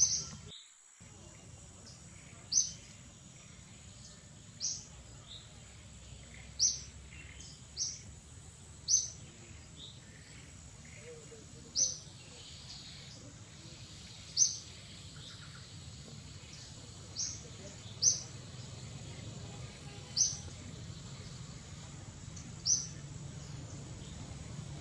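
A bird calling with short, sharp, high-pitched chirps, about a dozen of them, repeated roughly every two seconds over a steady low background rumble.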